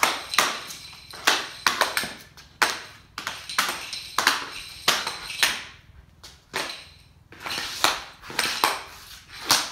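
Hockey stick blade, fitted with a wraparound off-ice blade cover, stickhandling a green biscuit on a concrete floor: a run of sharp, uneven clacks, one or two a second, with short scraping slides between them.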